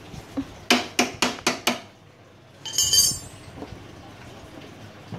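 Metal hand tools clinking: about six sharp, ringing metallic clinks in quick succession, then a short rattling jangle about three seconds in.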